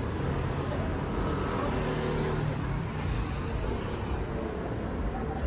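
Street traffic: vehicles running along a busy road with a steady low rumble, an engine note passing about a second in.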